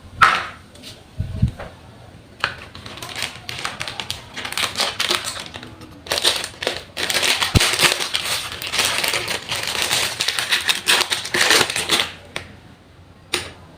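Plastic and paper packaging crinkling and rustling as a parcel is handled and opened. There is a sharp click near the start and a dense run of crackles from about two seconds in to near the end.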